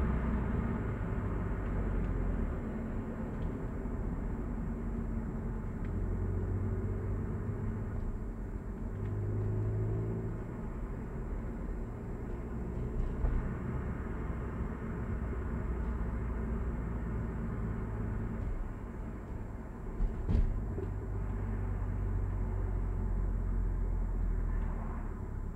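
Engine and road noise inside a Hyundai Avante AD (Elantra) cabin in slow traffic: a steady low rumble, with the engine note shifting between about six and ten seconds in. A short knock sounds about twenty seconds in.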